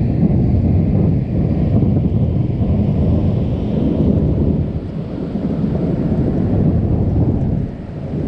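Rolling thunder rumbling continuously, deep and loud, easing off a little near the end.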